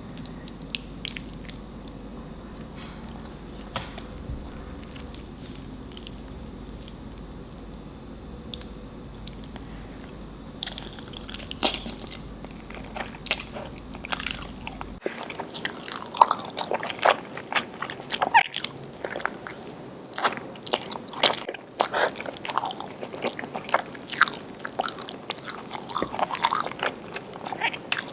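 Close-miked eating sounds: a person biting and chewing spicy Indian food, with wet mouth clicks and smacks. The first half is sparser over a steady low hum; about halfway through the hum cuts out and the chewing becomes louder and denser.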